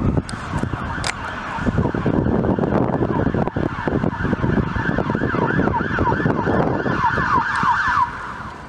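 Emergency vehicle siren on a responding vehicle, rising and falling rapidly in a fast yelp. It quickens near the end and stops abruptly about eight seconds in, over a steady low rumble of wind on the microphone.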